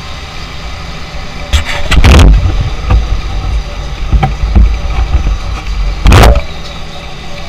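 Road traffic rumbling steadily, with two loud, short rushing bursts about two and six seconds in.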